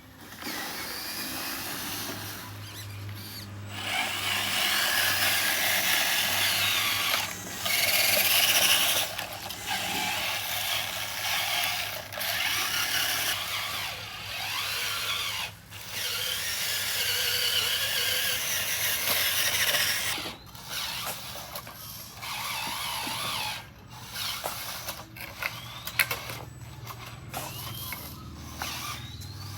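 Small electric motors and gearboxes of RC construction models whirring. They start and stop every few seconds, with a few short rising whines near the end.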